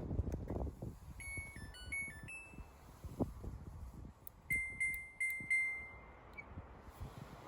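Samsung washing machine control panel beeping: a short stepped electronic melody, then a knock, then about four quick beeps running into a held tone.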